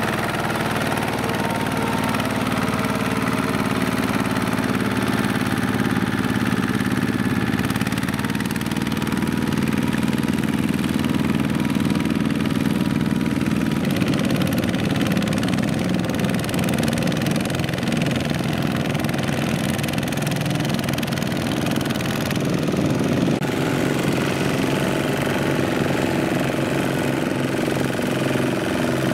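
Single-cylinder diesel engine of a two-wheel walking tractor running steadily while pulling a loaded trailer. Its pitch and tone shift abruptly a few times.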